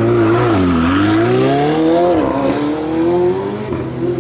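Hill-climb race car's engine accelerating hard through the gears: its pitch climbs steadily and drops back sharply at upshifts, twice, about a second and a half apart.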